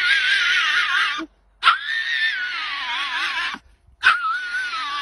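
Small dog whining in long, high-pitched wavering cries, each about two seconds long with its pitch wobbling and sliding down. One cry ends about a second in, another follows half a second later, and a third begins near the end.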